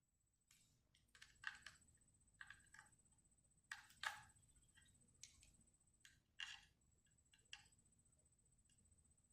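Faint, irregular small clicks and scrapes from a screwdriver on the tiny screws of a metal laptop hard-drive bracket, about a dozen in all, as the last mounting screw is fastened.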